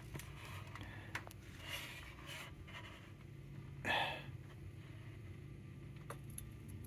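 Quiet room with a steady low hum and a few faint clicks, and a person breathing close by: a couple of soft breaths and a short, sharper breath about four seconds in.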